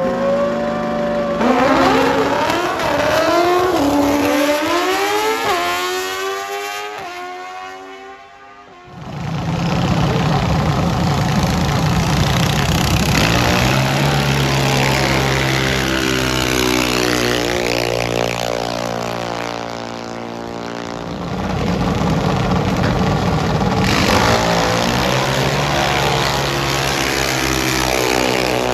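Drag-race engines at full throttle: one machine launches and climbs through its gears, its pitch rising, dropping back at each shift and rising again, as it fades away down the strip. Then more drag-race engines run loud and steady, easing briefly about two-thirds of the way through.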